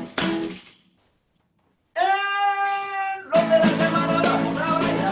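Upbeat song with a maraca shaker fades out about a second in, and the sound drops to silence for a freeze. Just after two seconds a single held high note sounds for about a second and a half. The full band with shaker then comes back in.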